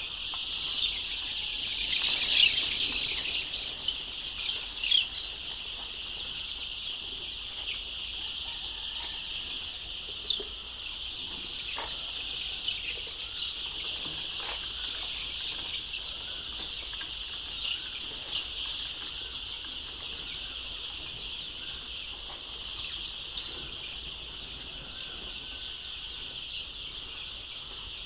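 A large flock of layer chicks peeping all at once, a dense continuous high-pitched chorus, with a few louder chirps and scattered short knocks.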